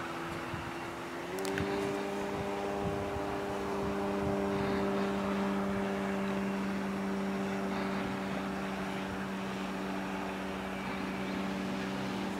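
Electric outrunner motor (Turnigy Rotomotor 1.60) and 20x6 propeller of a quarter-scale SIG Piper Cub RC plane droning steadily in flight. The pitch steps up slightly a little over a second in, then holds.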